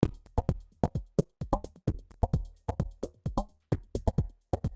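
Delta signal of the Uni-L mastering limiter on an electronic music track under heavy gain reduction: only what the limiter takes off is heard, a fast, uneven string of thin, clicky drum transients with brief low bass between them.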